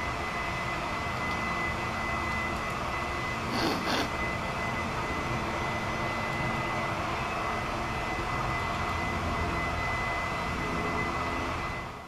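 Steady outdoor background noise with a low rumble and a continuous thin high tone, broken by two brief sharp sounds about three and a half seconds in.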